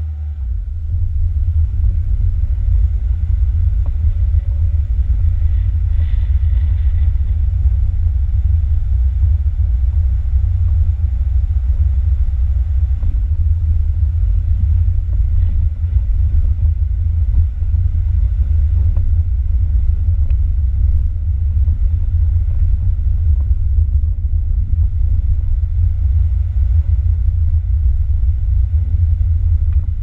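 Heavy, steady low rumble of a 1990 VAZ 21063 driving slowly along a bumpy dirt track, picked up by a camera mounted on its bonnet.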